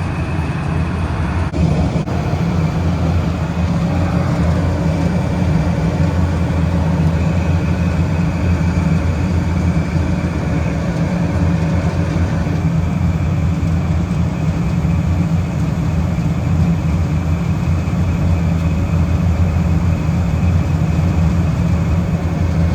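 Refrigeration condensing unit running with its compressor and fans on, giving a steady, loud low hum.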